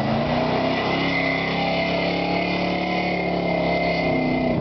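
Engine of a 1992 GMC Z71 pickup running steadily under throttle as the truck drives through mud, passing close by and then pulling away.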